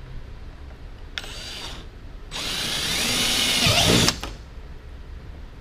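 Power drill boring holes through a kayak hull: a short burst about a second in, then a longer run that builds in loudness and cuts off suddenly about four seconds in.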